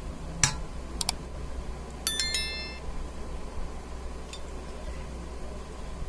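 A few sharp clicks of tableware, then a ringing metallic clink that dies away within about a second, over a steady low hum.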